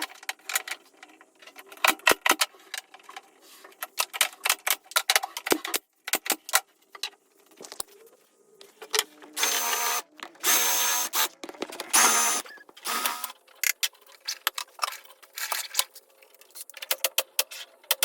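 Workshop tool sounds on wood: quick clicks and knocks throughout, and about halfway through three short bursts of a power tool, each about a second long.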